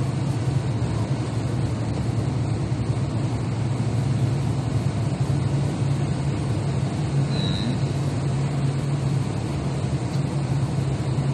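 Heavy truck's diesel engine and tyre noise heard inside the cab while cruising along the road, a steady low drone.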